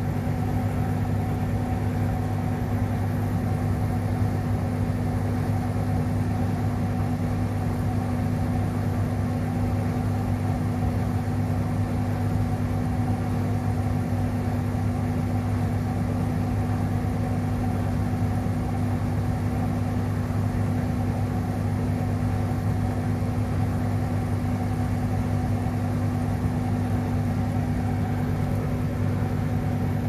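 Indesit IDC8T3B tumble dryer running: a steady, even hum from the drum motor and fan.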